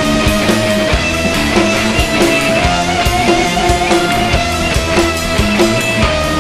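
A progressive rock trio plays live: electric guitar, bass guitar and drum kit, loud and dense, with sustained guitar tones over moving bass notes and steady drum hits.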